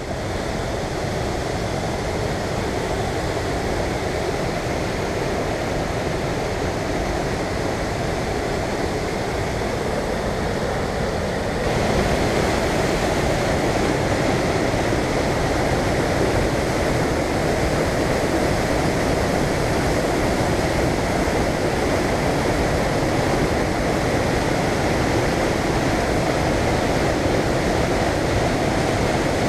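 Steady rush of falling water from the Reekie Linn waterfall on the River Isla, stepping up suddenly in level about twelve seconds in.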